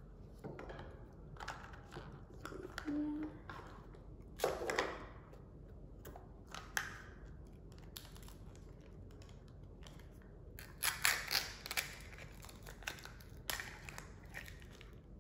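Hands opening a Mini Brands plastic surprise capsule and its wrapping: scattered light plastic clicks and crinkling, busiest near the end.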